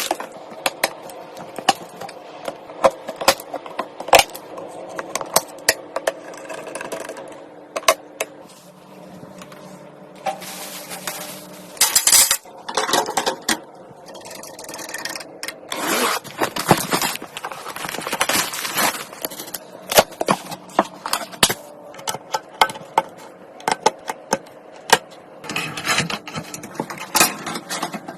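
Computer parts being handled and fitted together: irregular clicks, knocks, scrapes and rattles of small hard metal and plastic pieces, over a faint steady hum in the first half.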